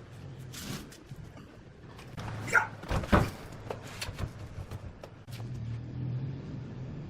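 Wooden knocks and clunks as a workpiece is handled, the loudest two about two and a half and three seconds in, then a steady low motor hum that comes in about five seconds in as the wood lathe starts running.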